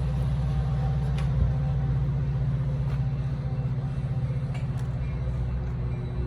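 Diesel locomotive engine of a Metra commuter train running steadily, a low even throb with a fast pulse, with a few faint clicks above it.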